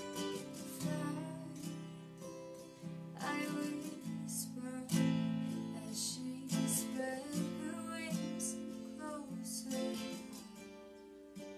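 Acoustic guitar strummed, with a woman singing over it.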